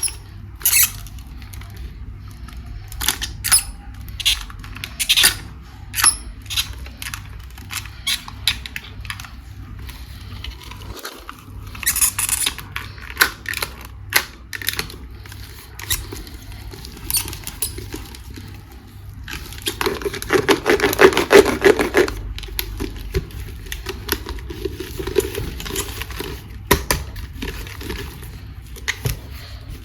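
Handling of plastic dinosaur toys and packaging: scattered clicks and taps, with a few seconds of dense rustling about two-thirds of the way through.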